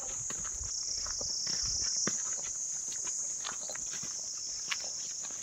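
Steady high-pitched insect chorus, with irregular footsteps on a forest path covered in dry pine needles.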